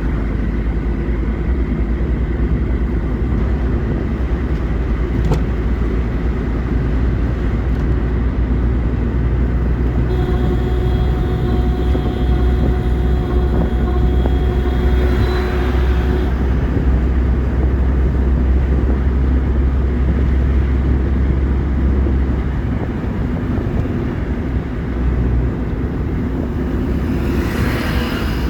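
Car on the move: steady deep rumble of engine and tyre noise. A few steady tones join in for several seconds in the middle, and a rushing swell of noise comes just before the end.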